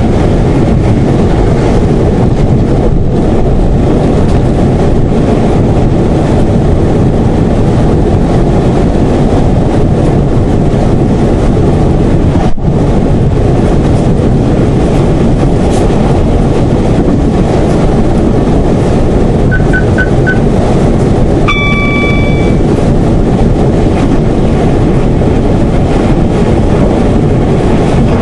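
Class 171 Turbostar diesel multiple unit running along the line, heard from the driver's cab: a steady, loud rumble of engine and wheels on rail. There is a single knock about halfway through. Near the three-quarter mark come three quick beeps, then a short horn-like tone.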